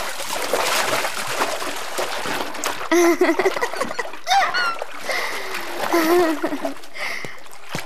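Water splashing and sloshing in a swimming pool as two people play in it. A woman's short squeals of laughter come over it a few times.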